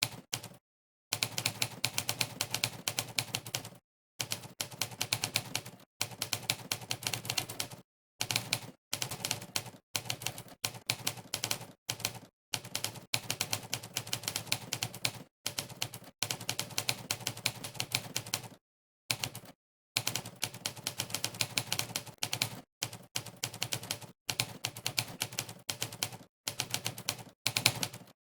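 Monkeytype's typewriter sound effect: a sampled typewriter clack played for each key press, rattling off in fast runs of typing that stop dead for a moment every few seconds.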